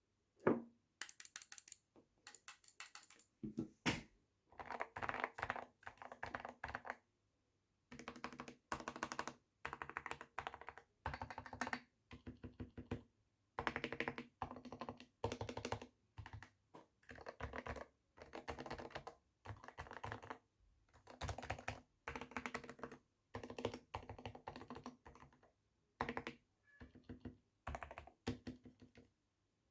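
Typing on a GK61 60% mechanical keyboard with lubed Gateron Silent Clear linear switches (37 g) and PBT keycaps, dampened with a two-layer tape mod, foam soundproofing and holee-modded stabilizers. It comes in bursts of quick, muted keystrokes with short pauses between them.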